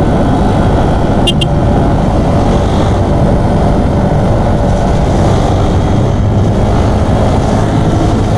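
Motorcycle running at steady cruising speed, with wind rushing over the helmet-mounted microphone. Two short high chirps come about a second in.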